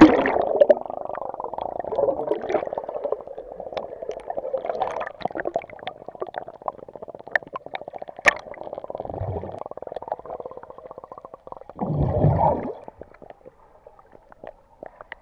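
Swimming pool heard underwater through a submerged action camera: a muffled rumble of moving water full of crackling bubbles and small clicks, opening with a loud splash as it goes under. About twelve seconds in there is a louder, deeper gush of water, and it turns quieter near the end.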